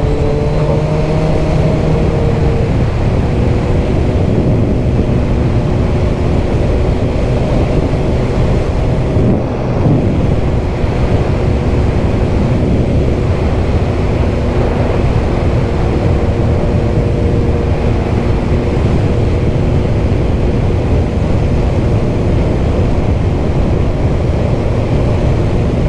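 Kawasaki GTR1400's 1,352 cc inline-four engine running steadily under way on the open road, mixed with a steady rush of wind and road noise on the bike-mounted microphone. The engine note dips and rises again about ten seconds in.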